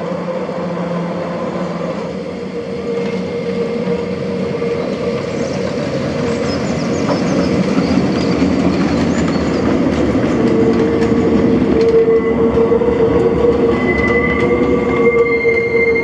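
An electric metre-gauge tram with a trailer car runs past on street track, its wheels rumbling on the rails. It grows steadily louder as it draws near, and a high, steady wheel squeal or whine strengthens in the second half.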